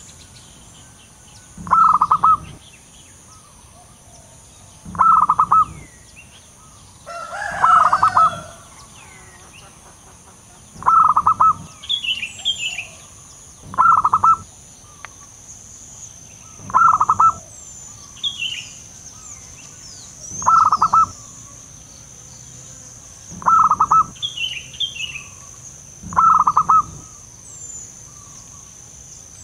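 Wild zebra dove cooing: a short burst of rapid staccato coos, repeated about every three seconds, nine times. Fainter chirps from smaller birds fall between the calls.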